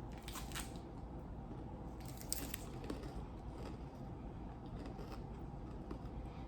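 Faint crunching of someone biting into and chewing a Cadbury Crunchie bar, crisp honeycomb toffee in milk chocolate, with short crisp crunches about half a second in and again about two seconds in.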